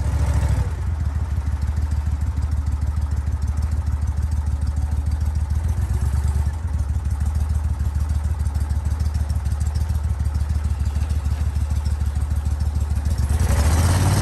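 Pro-Drive boat's outboard motor running at idle: a steady low hum with fast, even firing pulses. It grows a little louder near the end.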